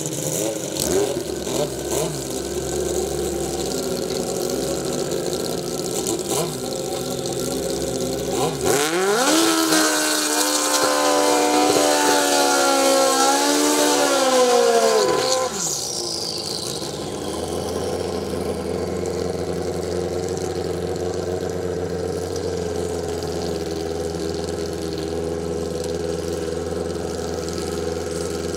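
Drag-racing motorcycle engines idling and blipping, then one bike doing a burnout about nine seconds in: the engine is held at high revs for about six seconds, its pitch wavering as the rear tyre spins. The engine then drops back with a short falling whine, and the bikes idle steadily.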